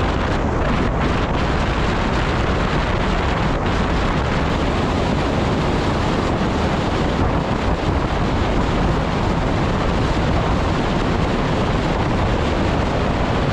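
Steady wind noise on the microphone with the road noise of a car driving at speed along a highway.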